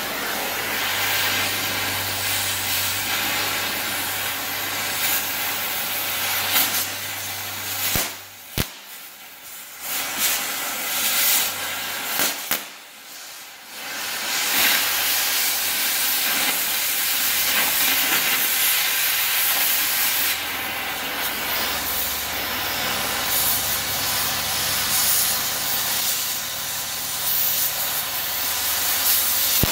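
Oxy-fuel cutting torch hissing steadily as it cuts through the steel bumper mounts of a pickup frame. The hiss drops away twice for a second or two about a third of the way through, with a sharp click at the first break.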